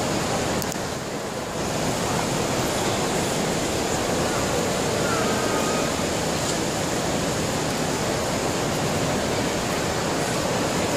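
Steady background din of a busy indoor shopping mall: many shoppers' voices blurred together into an even, hissy wash, with no single sound standing out.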